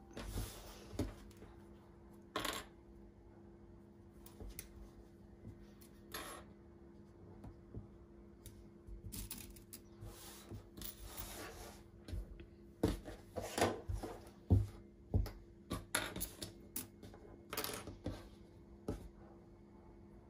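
Hands handling and smoothing swimsuit fabric on a table, with irregular light clicks, taps and rustles that come thickest about two-thirds of the way through, over a faint steady hum.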